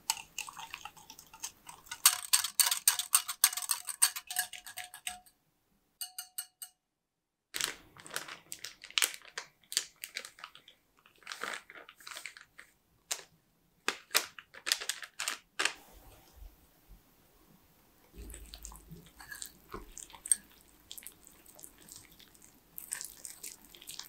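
Wire whisk clicking rapidly against a glass mixing bowl as egg, cocoa, sugar, milk and oil are beaten together. After a short break, a plastic bag crinkles as pancake mix is poured into the bowl, then the whisk scrapes more softly through the thickening batter.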